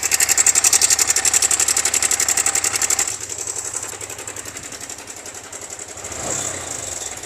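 Yamaha R15 V4's engine running at idle with a fast, even, rattling clatter from the top end, loudest for the first three seconds and then a little quieter. The mechanic suspects a failed timing chain tensioner letting the chain rattle, though a tappet noise in the head is not yet ruled out.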